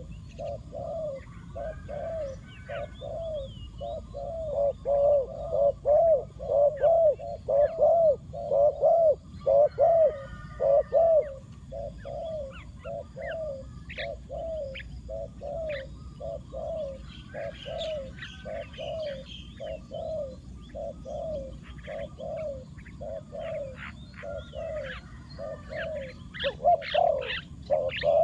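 A decoy spotted dove cooing in a long, even series of low coos, about one and a half a second, loudest in a stretch about a third of the way in; the call is used to draw in wild doves. Small birds chirp faintly in the background.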